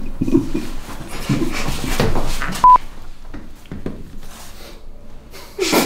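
A single short, loud steady beep, like a censor bleep, about two and a half seconds in, with soft voices and chuckling around it.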